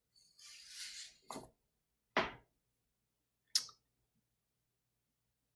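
Handling noises as papers are sorted on a table: a short rustle, then three short knocks or taps over the next few seconds.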